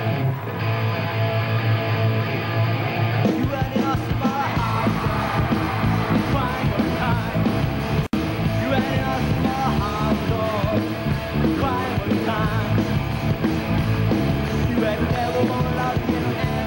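Live heavy metal band playing a rock and roll number, with electric guitar, bass and drums. A held chord gives way about three seconds in to the full band driving along on a steady beat. There is a momentary dropout in the sound a little past halfway.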